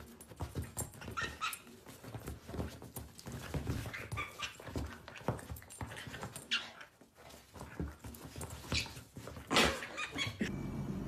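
Short, high animal calls from pets, a dozen or so scattered through, the loudest just before the end. A steady low hum takes over for the last moment.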